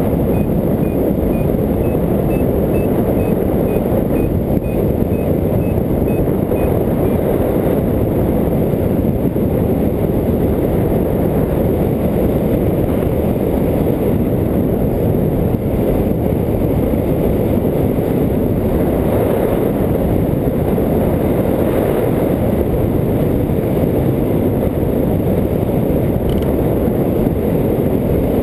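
Steady rush of wind on the microphone of a hang glider in flight. For the first six seconds or so a variometer beeps in a quick, even series, its pitch wavering slightly, a sign the glider is climbing, then falls silent.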